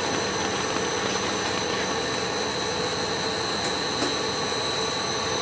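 FTPEG 1000 compound air bubble film machine running, a steady mechanical drone with a constant high-pitched whine.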